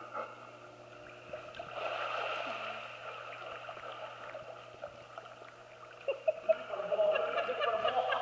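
Pool water sloshing and gurgling around a swimming dog, with choppy splashing near the end as the dog lunges through the water.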